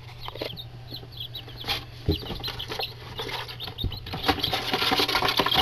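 Eight-day-old Buff Orpington and Barred Rock chicks peeping in short high cheeps, with the scratching and pattering of their feet in a small box. The peeping gets busier over the last couple of seconds.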